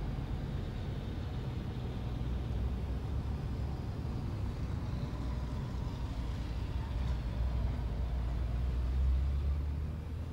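Steady low rumble of motor vehicles running, swelling slightly about nine seconds in.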